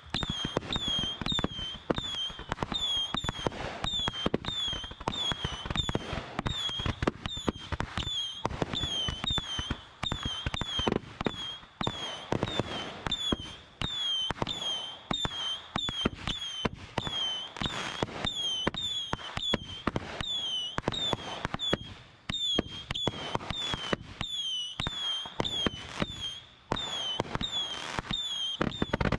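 Fireworks finale recorded from the launch platform: a rapid, unbroken barrage of shells launching and bursting overhead, bang after bang with crackle. A high falling chirp repeats about two or three times a second behind the bangs.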